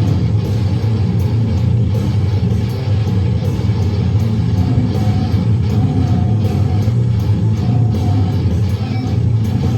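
Loud live goregrind music: dense, heavily distorted low guitar, steady throughout.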